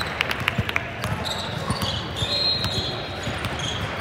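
Basketball dribbled on a hardwood gym floor: a run of bouncing thuds. A couple of short high sneaker squeaks come about two seconds in.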